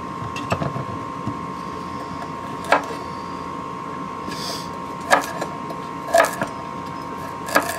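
Kitchen knife chopping a carrot into chunks on a wooden cutting board: four or five sharp knocks, roughly a second apart, over a steady faint high hum.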